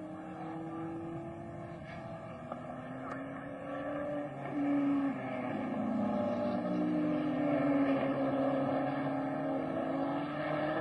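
Early-1960s open-wheel racing car engines running at speed. The engine note holds, then drops, and about four and a half seconds in it gets louder and climbs slowly in pitch as a car accelerates closer.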